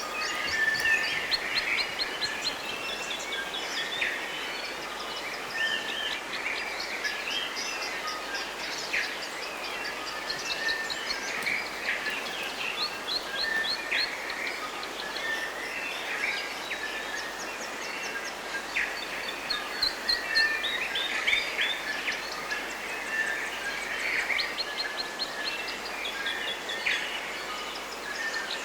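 Several birds singing and calling at once in forest, with chirps and rapid trills of repeated high notes overlapping throughout, over a steady background hiss.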